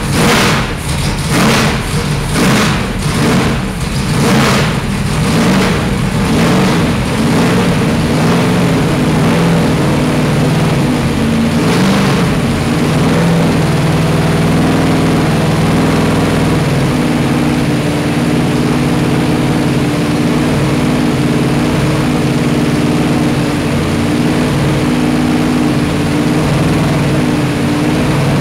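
Mopar Hemi V8 race car engine revved in a quick run of throttle blips, about ten in the first seven seconds, then settling into a steady idle.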